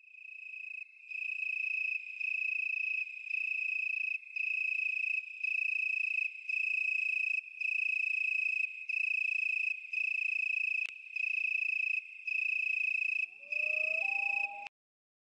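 High-pitched electronic alert tone beeping steadily about once a second, around fourteen long beeps: the attention signal of a tornado warning alert. A short lower wavering tone joins it near the end, then it cuts off suddenly.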